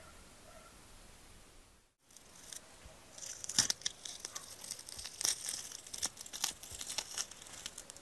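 Cured red rubbery casting mould being pulled apart by hand into its two halves, peeling away from the metal lure blank set inside. It comes as a run of sharp crackles and tearing from about two and a half seconds in, after a quiet start.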